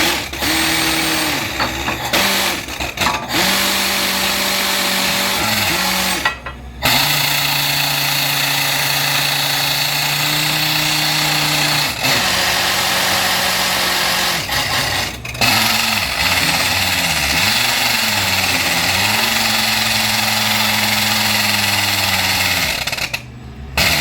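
Borewell drilling rig running: a loud, continuous hammering roar over an engine note that rises and falls in pitch. It breaks off briefly about six and a half seconds in, and stops about a second before the end.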